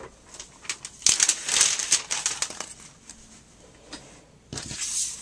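Paper being handled: crinkly rustling of paper and adhesive sheet, in two main bursts, about a second in and again near the end.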